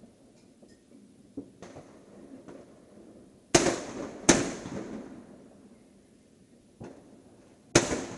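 Fireworks and firecrackers going off: scattered bangs, with three loud ones a little past three and a half seconds in, again under a second later, and near the end, and softer pops between. Each loud bang trails off in a rolling echo.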